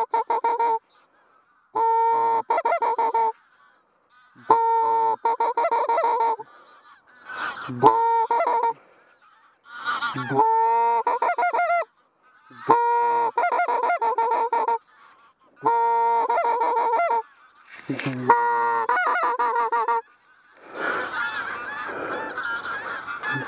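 Greylag geese honking in repeated bouts, each about a second and a half long, with a short pause between them. Near the end comes a denser stretch of many overlapping honks.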